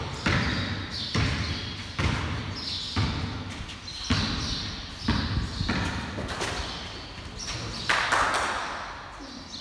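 Basketball dribbled on a concrete floor, about one bounce a second, each bounce echoing in a large garage bay. Near the end there is a louder burst of noise as a shot reaches the hoop.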